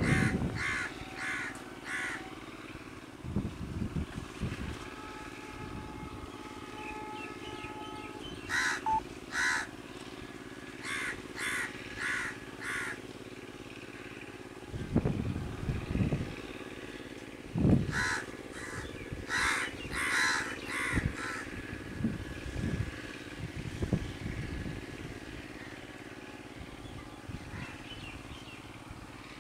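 Crows cawing in runs of three or four short calls, several times over, above a low steady hum with occasional low thuds.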